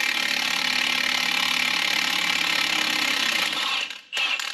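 Milwaukee FUEL cordless impact wrench hammering steadily on a 32 mm front axle nut until the nut spins off. It stops near the end, then gives one short extra burst. The nut is a little rusted on and fights a bit before breaking loose.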